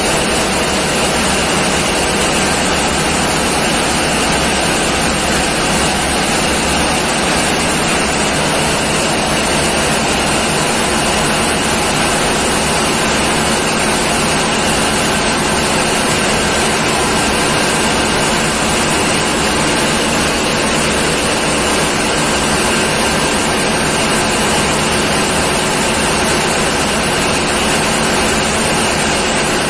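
Diesel machinery running in a tugboat's engine room: a loud, steady, unchanging din with no breaks or changes in pitch.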